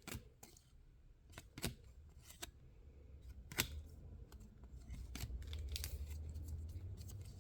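Faint clicks and rustles of trading cards being handled and shuffled on a table, with a low rumble building in the second half.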